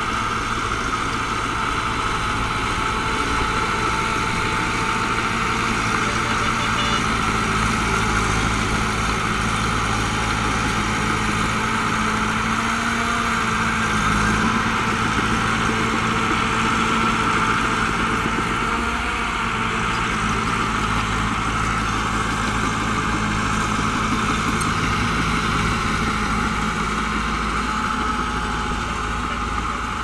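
SHANTUI crawler bulldozer's diesel engine running steadily as the dozer pushes soil with its blade.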